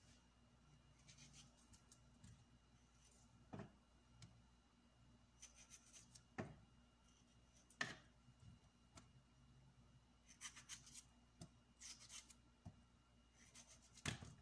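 Faint, scattered clicks and taps of a kitchen knife cutting tomatoes by hand over a plastic food processor bowl, with a few sharper knocks standing out among quieter ticks.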